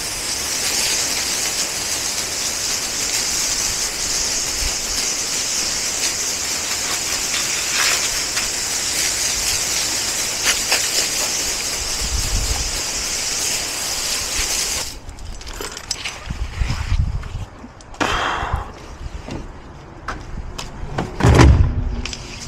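Pressure washer wand blasting a jet of water onto concrete, a loud steady hiss that cuts off suddenly when the trigger is released about two-thirds of the way through. Quieter handling knocks follow, and near the end there is a short, loud sound that slides down in pitch.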